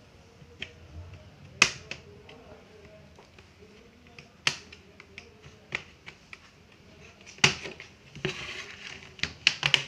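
Sharp plastic clicks and snaps, every second or two, as the bottom cover of a Dell Inspiron 5568 laptop is pried off its clips, with a scraping rustle and a quick run of clicks near the end as the cover comes free.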